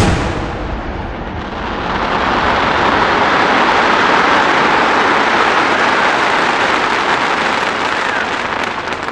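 Fireworks: a sudden loud boom, followed by several seconds of dense hissing crackle that swells, holds and slowly fades, with separate sharp pops starting near the end.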